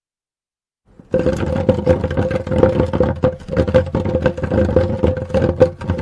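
Wooden barrel rolled and scraped along a sidewalk: a continuous rough rumble full of rapid clacks and knocks, with a steady ring from the barrel's body, starting suddenly about a second in.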